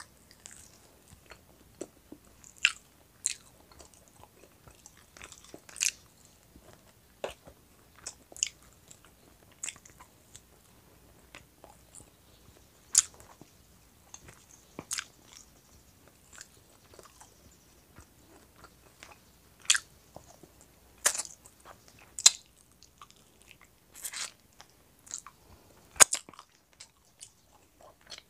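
Close-miked eating of roast chicken wings: biting, crunching and chewing, heard as sharp, irregular clicks and smacks a second or more apart.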